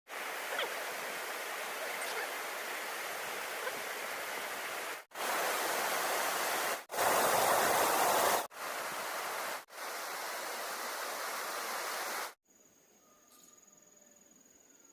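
Rushing water of a waterfall and stream, in short stretches that cut off and restart abruptly several times. About twelve seconds in it drops to a faint quiet with a thin high tone.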